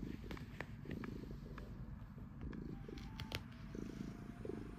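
Domestic cat purring while being stroked, a low rumble that swells and eases in rhythm with its breathing, with a few faint clicks over it.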